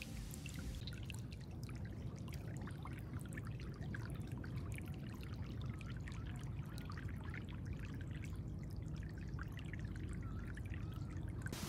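Shallow floodwater running over a low mud bank, with steady trickling and gurgling. A sharp click right at the start.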